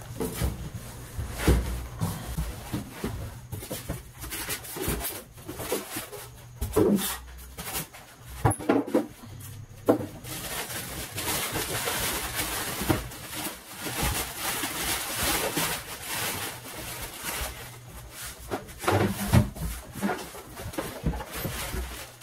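Packaging being handled: scattered knocks of foam packing pieces and the cardboard box, then a long rustle of the plastic bag wrapped around the printer about halfway through, and a few more knocks near the end.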